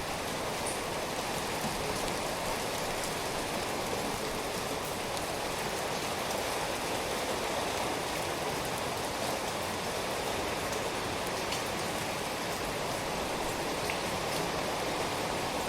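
Steady rainfall, an even hiss of rain on a surface with faint scattered drop ticks.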